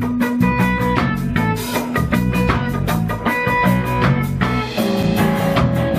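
A live band trio plays an instrumental passage of a song with a steady beat and held pitched notes, without vocals.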